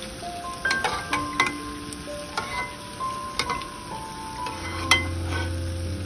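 Gram-flour phulki fritters sizzling in hot frying oil while a steel slotted spoon scrapes and clinks against a wire-mesh strainer and the aluminium pan, with sharp clinks about a second in, again near three and a half seconds, and loudest near five seconds. Soft background music with held notes plays underneath.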